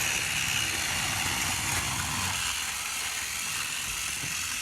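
Toy train engines running along the track: a steady mechanical whir and rumble with no distinct beats.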